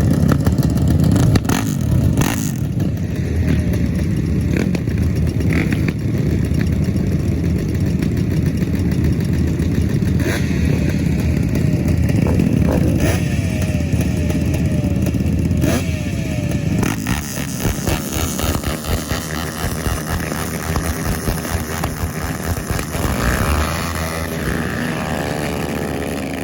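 Racing engines revving hard as vehicles speed past, the pitch rising and falling with each pass. The engine noise thins and drops somewhat in the last third.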